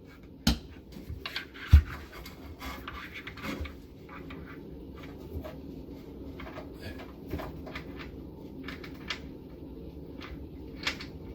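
Irregular light clicks and knocks as a bolt is worked at a hole in a wooden cabinet face frame under a sink, with one dull thump about two seconds in.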